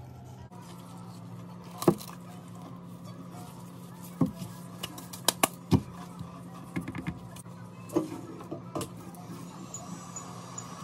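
Huawei Mate 30 Pro phones being handled and set down on a work surface: a series of sharp taps and knocks, the loudest about two seconds in, over a steady low hum.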